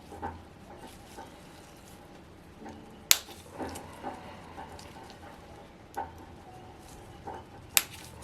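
Small metal engine parts and tools clinking and tapping on a workbench as a model engine is taken apart, with short metallic rings after some knocks. Two sharp clicks stand out, about three seconds in and near the end.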